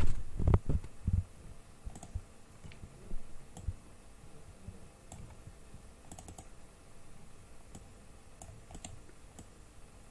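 Sparse single clicks of a computer mouse, about a dozen scattered through, with several in quick succession about six seconds in. A few dull low thumps come near the start.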